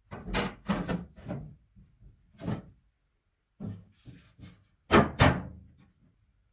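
Old loose wooden boards being laid onto a wooden chest frame and shifted into place, scraping and knocking on the wood in a series of irregular strokes, with the two loudest knocks coming in quick succession about five seconds in.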